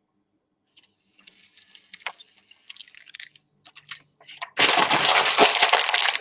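Adhesive glue sheet for temporary-tattoo transfer paper being peeled apart with soft rustles and small crackles, then loud paper crinkling for about two seconds near the end as the peeled paper is crumpled up.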